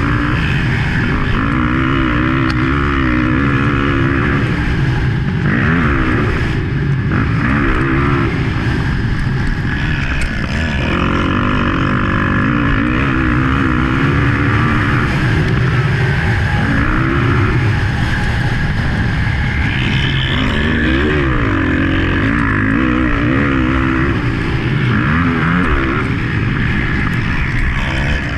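Motocross bike engine heard from on board while racing, the revs rising and falling again and again as the rider accelerates, shifts and rolls off through the track's straights and corners.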